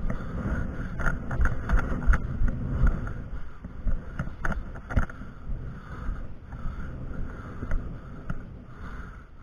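Wind buffeting a body-worn camera's microphone, with footsteps and clothing and gear rustle as the wearer walks up concrete steps onto a wooden deck. A few sharp clicks come about a second in and again around the middle.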